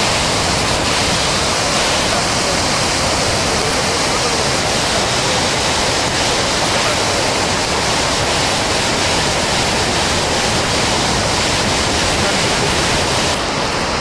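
Muddy floodwater rushing down a rocky gorge as a loud, steady rush of water. The sound drops slightly and changes character near the end.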